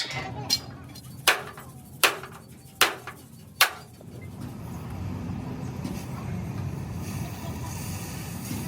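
Hammer blows on steel, about five sharp strikes under a second apart. They stop after about four seconds and give way to a steady mechanical drone.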